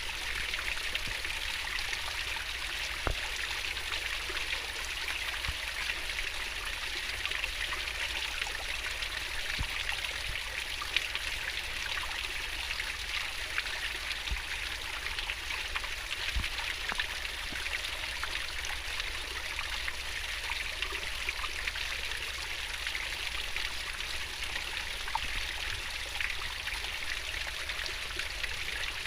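Fast-flowing river water babbling steadily, with small scattered splashes.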